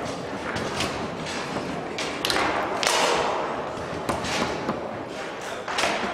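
Foosball play on a Tornado table: the ball and the rods knocking, with a string of sharp clacks and thuds, the loudest about three seconds in.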